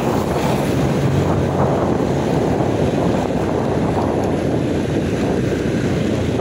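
Wind rushing over the microphone on a moving motorcycle, with the engine running steadily underneath.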